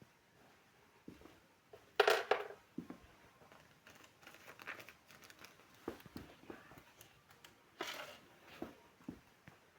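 Small items being handled and set down while a dressing table is tidied: scattered light clicks and knocks, with two louder brief rustles about two seconds in and near the end.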